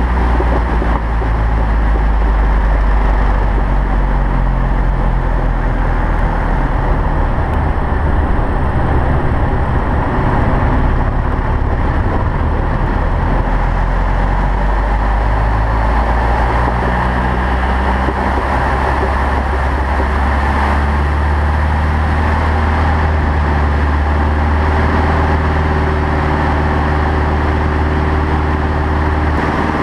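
Single-engine propeller plane heard from inside the cockpit: the engine throttled back, with air rushing past the canopy through a power-off stall and one-turn spin. The engine's note shifts in pitch, the wind noise swells during the nose-down recovery, and in the last third the engine settles into a steadier, stronger drone as power is added.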